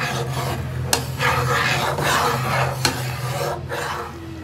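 Repeated rasping, rubbing strokes, each lasting most of a second and coming about once a second, with two sharp clicks among them. A steady low hum runs underneath. The rasping fades out near the end.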